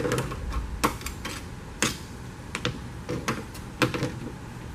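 Irregular light clicks and knocks, about seven or eight, from a metal door-frame trim piece being handled; the sharpest comes a little under two seconds in.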